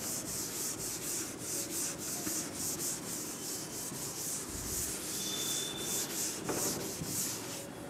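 A chalkboard duster wiping chalk off a chalkboard in quick, repeated back-and-forth strokes, a soft rhythmic scrubbing hiss.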